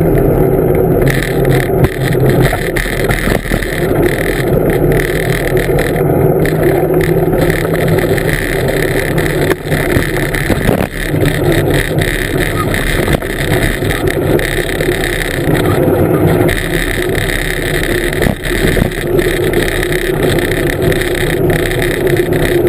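Blokart land yacht under sail: a loud, steady rumble and rush from its wheels rolling over the ground, with wind on the microphone.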